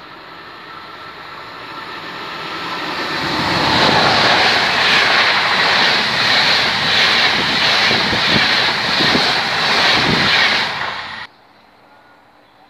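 Intercity passenger train approaching and passing at speed: a rushing noise that swells over the first few seconds, then a loud, steady rush and rumble of the coaches going by with a faint rhythmic pulsing, cutting off abruptly near the end.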